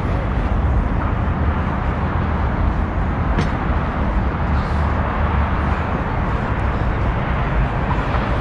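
Steady road traffic noise: a constant rumble of cars passing on a busy street.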